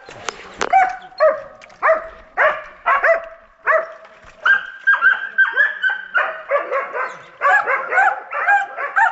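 Hunting dog baying at a wild boar: loud barks about twice a second, a longer drawn-out bay around the middle, then quicker barks near the end.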